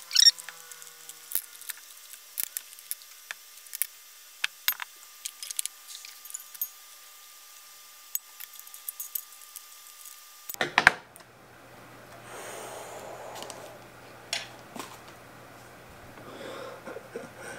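Scattered light clicks and taps of a UFS inline skate frame and a hard plastic skate boot being handled and fitted together, with one sharper knock near eleven seconds in. After it, softer rustling handling noise over a faint low hum.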